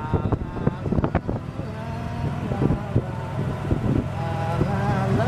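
Golf cart driving along a paved road: a steady low running hum, with a few short rattles and knocks in the first second or so.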